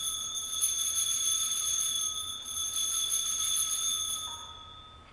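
Altar bells (Sanctus bells) ringing, shaken continuously and then left to die away near the end. This is the signal for the elevation of the consecrated host.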